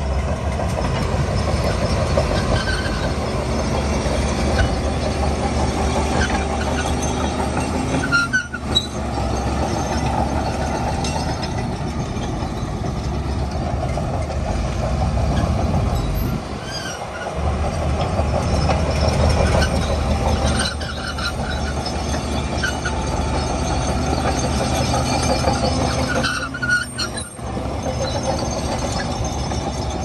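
Crawler bulldozer's diesel engine running under load, with the steady clank of its steel tracks. The sound briefly dips three times.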